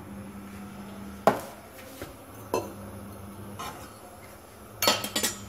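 Metal spatula clanking against an empty kadhai heating on the stove: one sharp clank about a second in, two lighter knocks, then a quick cluster of clinks near the end.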